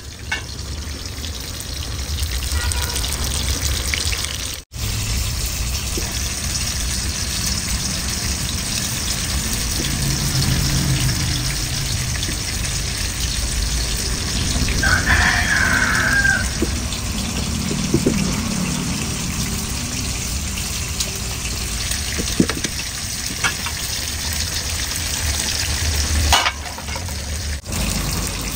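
Steady hiss of background noise with a low hum under it, and a short high-pitched call about halfway through.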